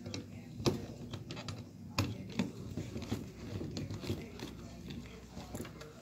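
Irregular clicks, taps and scrapes of a screwdriver and wires being worked at the terminals of a ceiling smoke detector base, with close handling noise; two sharper clicks stand out, about two-thirds of a second and two seconds in.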